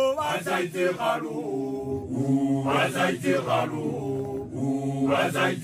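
Unaccompanied group chant of Basotho makoloane (male initiates), many male voices singing phrases together in several parts.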